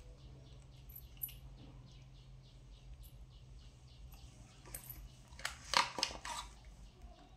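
Plastic toys clattering and knocking together as they are handled, a cluster of sharp knocks about five seconds in. Under it, faint high chirps repeating a few times a second and a low steady hum.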